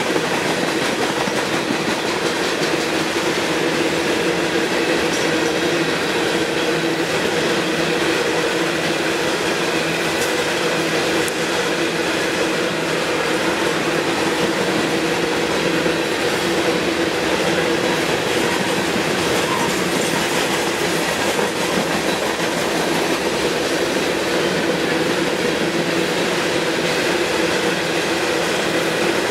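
Coal hopper cars of a long freight train rolling past, steel wheels running steadily on the rails with a continuous clatter and a steady ringing tone in the noise.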